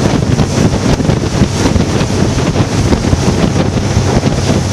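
Steady wind buffeting the microphone aboard a motorboat under way, with the rush of water and the boat's running noise beneath it.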